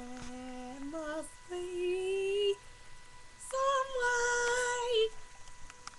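A young woman singing long held notes without words, stepping higher each time, with a short upward slide between the first two; the last and highest note, held for over a second, is the loudest.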